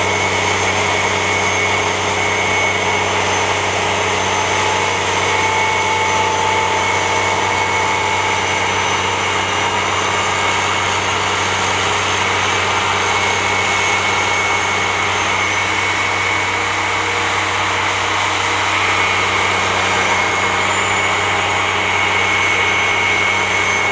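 Steady engine noise, an even low hum with a high whine over it, holding at the same level throughout.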